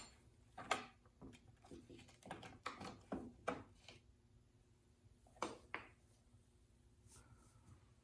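Soft clicks and knocks of the front handle of a Homelite XL chainsaw being worked loose and lifted off the saw's body, with two sharper knocks a little past halfway.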